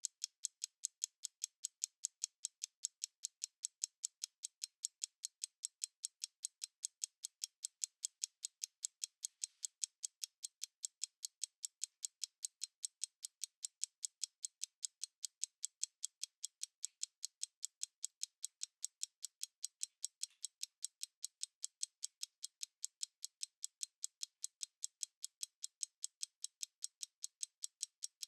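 Stopwatch ticking: a steady, even run of crisp, high-pitched ticks, about four a second.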